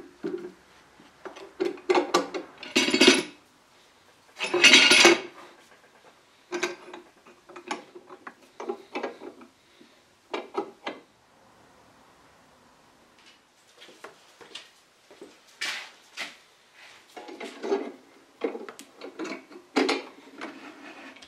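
Old steel bar clamps with wooden handles being set and tightened over wooden blocks: the metal jaws clank and slide on the bars and the screws are cranked down, in a run of irregular clatters and knocks, loudest about three and five seconds in. The clamps are pressing down freshly hide-glued parquetry pieces.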